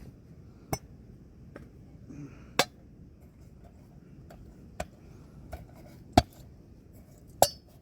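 Sharp clicks and knocks from camping kit being handled, about seven spread irregularly, the last two the loudest.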